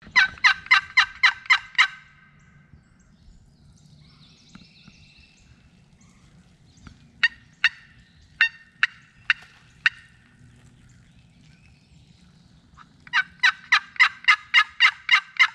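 Turkey yelping: a run of about eight yelps, then a string of sharp single clucks spaced out, then another run of about ten yelps.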